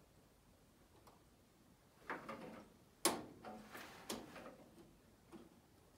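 Light metallic clicks and taps as a small E-clip is worked onto the pin of a throttle cable clevis, about eight in an uneven run, the sharpest click about three seconds in.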